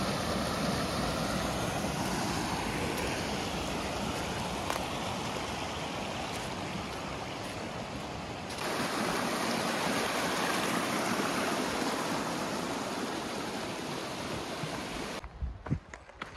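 A steady rushing noise that gets a little louder about halfway through and cuts off abruptly about a second before the end.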